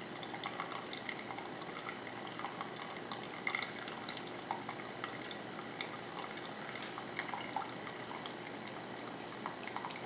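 Frigidaire single-serve coffee maker brewing quietly: a soft steady hiss with small scattered pops and drips as hot coffee runs into the mug. The machine makes little noise.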